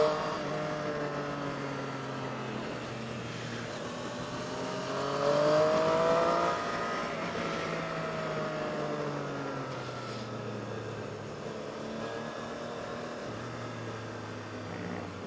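Motorcycle engine heard from the rider's seat on a downhill run: its pitch falls as the throttle is eased, rises with a burst of throttle about five seconds in, then drops back and runs steadier, over a steady rush of road and wind noise.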